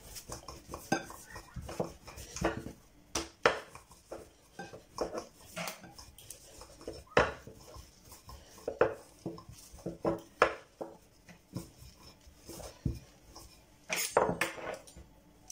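Wooden rolling pin working dough on a granite countertop: irregular sharp clacks and knocks as the pin taps and rolls against the stone, roughly one a second, with a quick cluster of louder clacks near the end.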